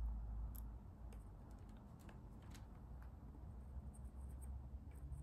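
Faint light clicks and taps of small hand tools and solder being handled at a workbench, scattered irregularly over a low rumble that is strongest at the start.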